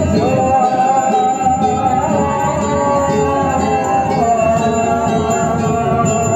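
Music: a sustained melody line that holds and slowly wavers, over a dense, busy accompaniment.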